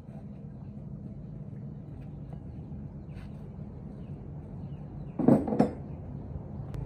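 Two quick metallic clanks about five seconds in as metal tools or parts are handled at a tool case, over a steady low machine hum.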